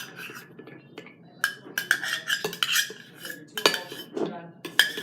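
A utensil scraping and knocking against a measuring cup and bowl, with irregular clinks and scrapes, as shaving cream is scooped out into the bowl.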